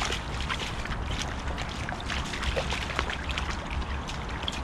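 Boxer dogs' paws splashing and sloshing as they wade through a shallow rainwater puddle, many small splashes in quick succession over a low rumble.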